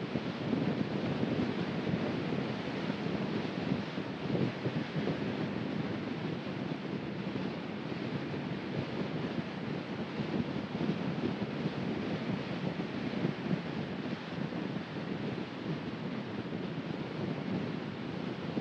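Steady road noise of a car driving: a continuous rumble of tyres and wind, with no single sound standing out.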